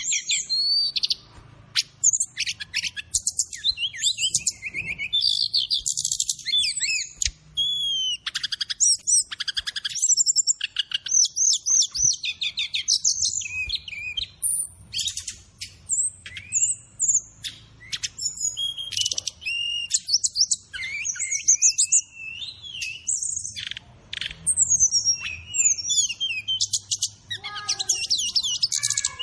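Brown-chested jungle flycatcher (SRDC) song mixed with fill-in calls: a fast, varied string of high chirps, trills and short whistled glides, with brief gaps between phrases.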